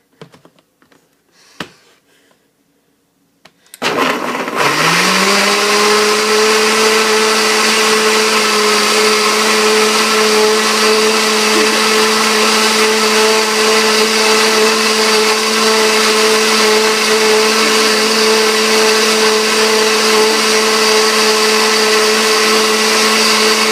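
A few knocks, then an electric blender switches on about four seconds in. Its motor pitch rises quickly to a steady whine, and it runs steadily, blending a protein smoothie mix.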